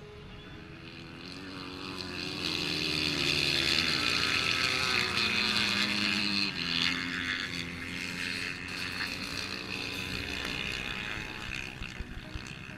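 Dirt bike engines revving hard as racing bikes run the course. The sound builds over the first couple of seconds, is loudest from about three to seven seconds in, then eases off somewhat.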